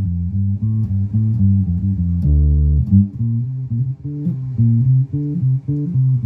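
Electric guitar played through a Peavey 400 series bass amp on its clean normal channel: a riff of low picked notes with a longer held chord about two seconds in.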